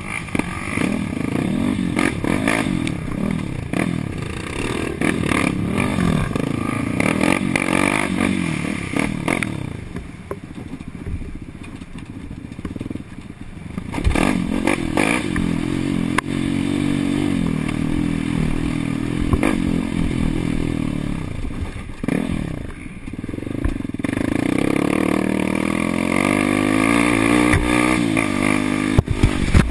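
Suzuki LT-R450 race quad's single-cylinder four-stroke engine revving under hard riding, its pitch rising and falling with the throttle. It backs off twice, about ten seconds in and again just past twenty, and short knocks and clatter from the chassis on bumps come through throughout.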